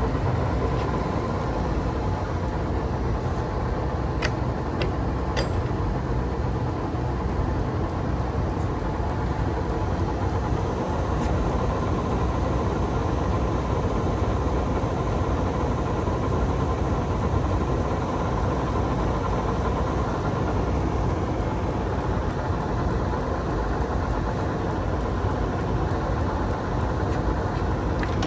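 1978 Monarch 613 engine lathe running under power, a steady machine hum with a few faint clicks about four to five and a half seconds in.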